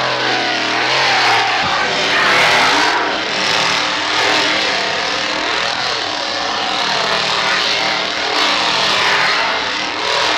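Chainsaw running flat out and revving up and down, its pitch rising and falling continuously.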